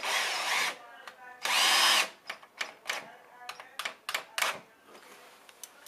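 Power drill driving a screw into a block in two short bursts, the second the loudest, followed by several short clicks and knocks.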